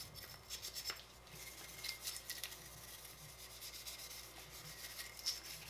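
Small wire brush scrubbing a solvent-soaked AR-15 bolt carrier in faint, intermittent scratchy strokes.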